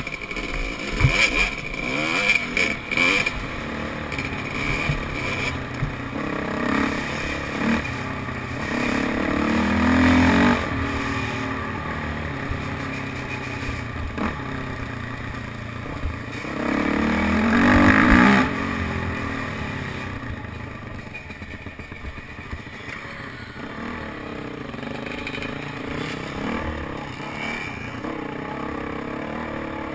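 Dirt bike engines running on a trail, with rattling in the first few seconds; the engine sound swells loudly twice, about ten and eighteen seconds in, as bikes ride close by, pitch rising and falling.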